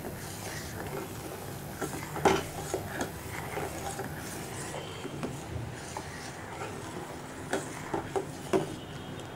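A metal spoon stirring thickening egg-and-milk custard in a steel saucepan, scraping round the pan and giving a few light knocks against its side, scattered through the stirring. The stirring keeps the custard from sticking to the bottom as it cooks.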